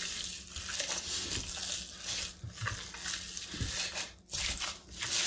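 A gloved hand kneading cold ground pork mixed with seasoning and beer in a stainless steel pot: the meat squishing irregularly under the hand.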